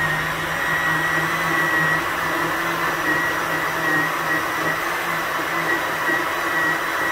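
Countertop blender running steadily, churning a liquid mix of milk, eggs and condensed milk: a steady high motor whine over a rushing, swirling noise.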